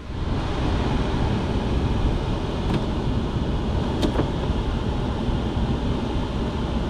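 Steady road noise inside the cab of a moving GMC pickup truck.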